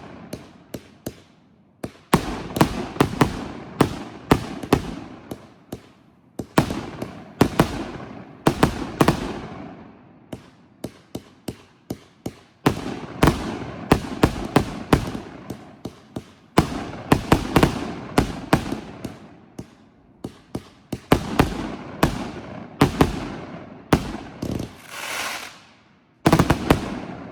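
Aerial fireworks going off: groups of sharp bangs every couple of seconds, each followed by a rolling, echoing rumble as it fades.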